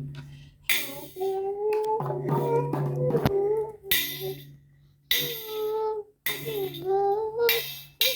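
Music: a held, gently gliding melody line in short phrases, with jingling percussion like a tambourine coming in and out.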